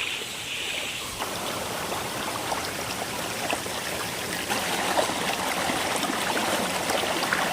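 Waterfall-fed stream water rushing steadily, with small splashes scattered through it.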